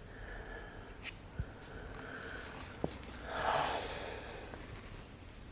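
A person breathing audibly, a few soft breaths with a stronger, longer one out about three and a half seconds in. A few faint clicks fall in between.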